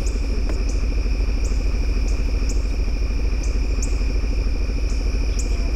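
Vehicle engine idling with a steady low rumble, under a continuous high drone of insects such as crickets, with short high chirps repeating about twice a second.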